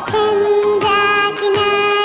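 Children's song music: a bright melody of held notes over a steady drum beat.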